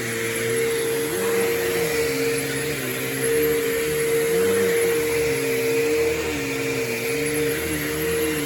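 Bissell CleanView Revolution Deluxe bagless upright vacuum running on carpet: a steady motor whine, with lower tones that waver up and down in pitch.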